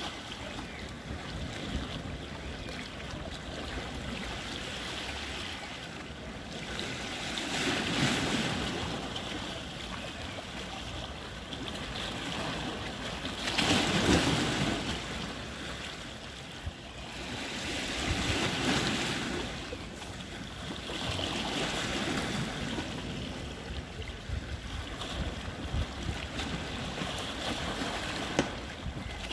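Sea waves washing and splashing against the rocks of a breakwater, swelling every few seconds, with wind on the microphone.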